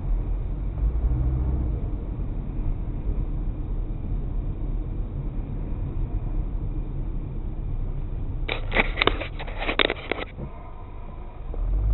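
Car on the move: a steady low rumble of engine and road noise inside the cabin. About eight and a half seconds in, a cluster of sharp clicks and rattles lasts about two seconds.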